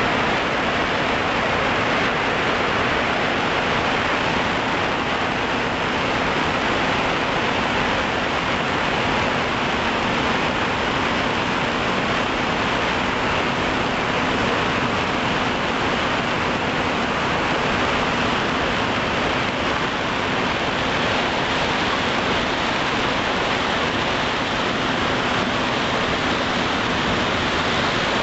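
Steady rushing noise of a multirotor drone's spinning propellers and motors, picked up by its own onboard camera, with a faint steady hum under it.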